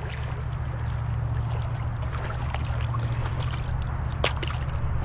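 Creek water running over a shallow rocky bed, under a steady low rumble, with scattered light crackles and one sharp click a little after four seconds in.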